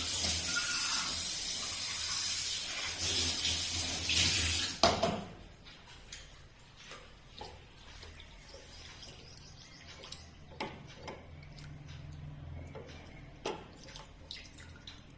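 Water running and splashing for about five seconds, stopping with a sharp knock. After that, only scattered light clicks and knocks.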